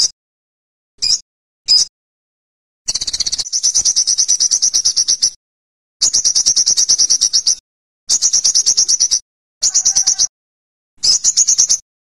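Olive-backed sunbird calling: three short, sharp, high chips, then a run of rapid high-pitched trills of fast repeated notes, the first trill about two and a half seconds long and the later ones shorter.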